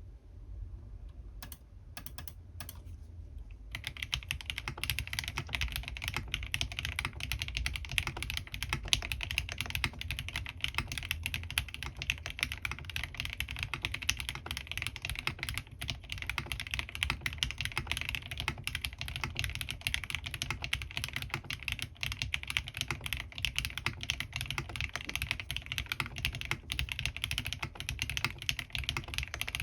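Typing on a Bahm Studio Droplet custom mechanical keyboard with lubed Gateron CJ linear switches and PBT keycaps. A few single keystrokes come first, then steady, fast typing from about four seconds in.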